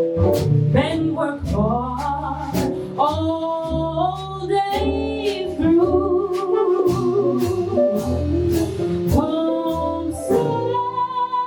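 Live jazz ballad: a singer holding long, wavering notes over walking bass, piano chords and soft cymbal strokes.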